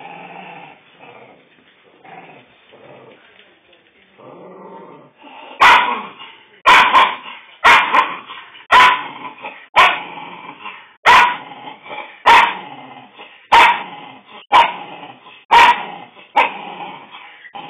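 A small dog growling low for several seconds, then breaking into a run of about a dozen sharp barks, roughly one a second. It is a warning aimed at another dog lying too close beside it in the shared basket.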